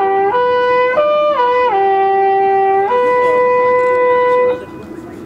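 Wooden midwinter horn being blown: a phrase of notes stepping up and down between a few fixed pitches, ending on a long held note that stops abruptly about four and a half seconds in.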